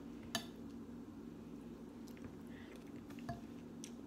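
Quiet eating sounds: a metal spoon stirring soft oatmeal in a glass bowl, with one light clink of spoon on glass just after the start and a few faint ticks later.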